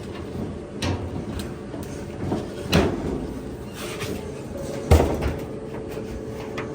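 Sheet-metal clunks and knocks of clothes-dryer cabinet parts being handled and set back in place: a few separate impacts, the loudest about three and five seconds in, over a steady hum.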